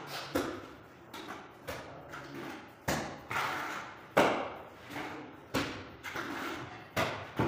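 A hand tool knocking and scraping in a plastic bucket of tile adhesive, a sharp knock about every second and a quarter, each trailing off in the echo of a bare room.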